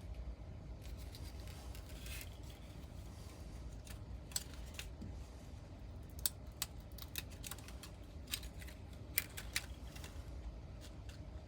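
Scattered light clicks and taps of hands pressing and working an adhesive textured grip sheet onto a polymer pistol frame, over a low steady hum.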